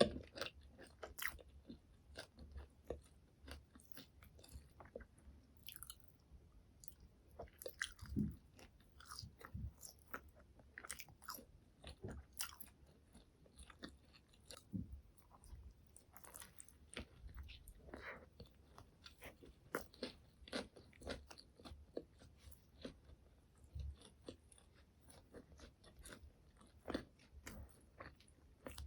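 A person chewing and biting food close to the microphone, with many small, irregular crunches and crackles and an occasional soft low thud.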